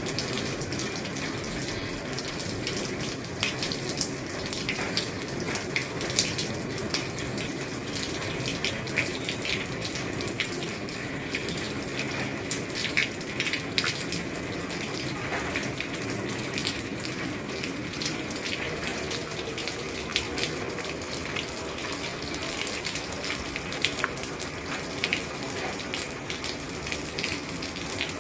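Heavy rain falling on an old roof: a steady hiss with frequent sharp ticks of individual drops striking.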